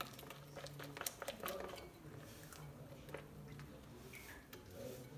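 Wire whisk stirring cake batter in a glass bowl: soft wet squishing with scattered light clicks of the whisk against the glass.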